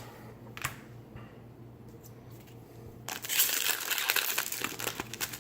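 Foil booster-pack wrapper crinkling as it is handled, a dense crackle lasting about two seconds from a little past halfway, after a few light ticks of card handling.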